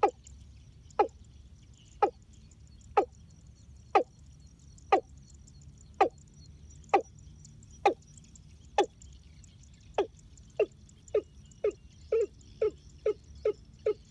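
Watercock calling: a series of short, downward-sliding notes, about one a second. About twelve seconds in they quicken to two or three a second, as a bird lures a male to the decoy hen.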